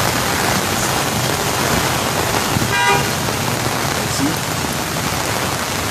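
Steady hiss of rain and flowing water on a flooded road, with a short vehicle horn toot about three seconds in.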